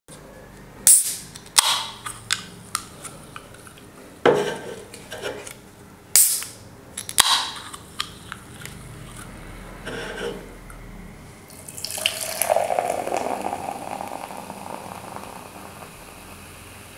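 Aluminium soda cans cracked open by their pull tabs, several sharp clicks each followed by a short fizzing hiss. About twelve seconds in, a steady fizzing pour of cola into a glass mug begins and goes on for several seconds.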